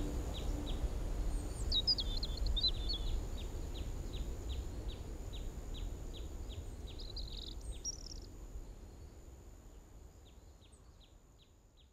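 Outdoor nature ambience: birds chirping in two short spells over a low rumble, with a small repeated chirp about two or three times a second. The whole ambience fades out gradually.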